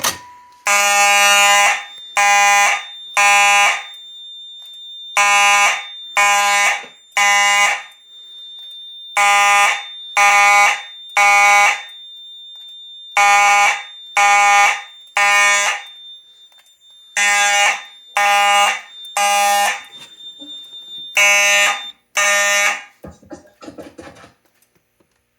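Simplex 4903-9219 mechanical horn sounding in temporal code 3: three loud buzzing blasts, then a short pause, repeated about six times before it stops. A faint steady high whine runs under and between the blasts.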